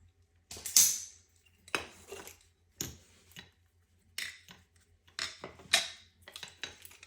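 Fuel injector and fuel rail parts clicking and clinking together, about half a dozen sharp metallic knocks at irregular intervals, as the injector is worked in an attempt to seat it in the rail.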